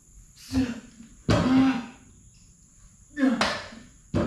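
A man's forceful breaths and grunts while he does belt squat reps, a burst every second or so. Some bursts start with a sharp knock from the plate-loaded belt squat machine.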